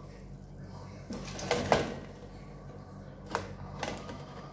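Metal utensil knocking and scraping against a large metal pot while noodles and vegetables are tossed: a run of clatter about a second in, loudest near the two-second mark, then two sharper knocks a little after three seconds, over a steady low hum.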